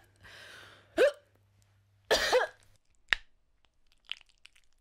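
Voice-acted choking and coughing, of someone with something stuck in the throat being squeezed free: a breathy wheeze, a short grunt about a second in, then a loud hacking cough about two seconds in. A sharp click follows soon after.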